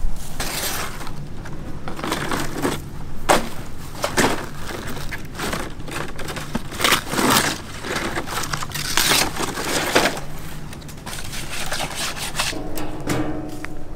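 Large green palm fronds rustling and crackling as they are handled and bent, in irregular sharp swishes and snaps.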